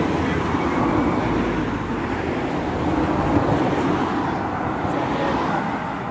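Road traffic going by: a steady noise of passing vehicles that eases off near the end.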